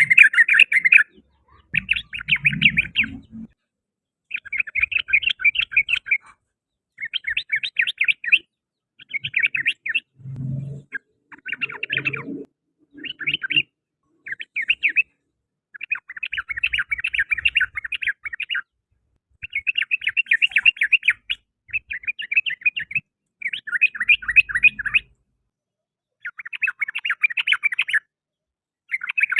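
Yellow-vented bulbul (trucukan) singing: phrases of rapid chattering notes, each one to two seconds long, repeated over and over with short pauses between them.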